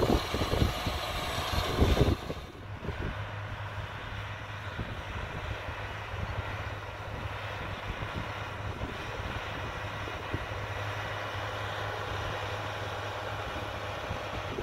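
Tractor diesel engine running steadily under load while pulling a planter. For about the first two seconds wind buffets the microphone over it; then the sound cuts abruptly to a quieter, steady low hum.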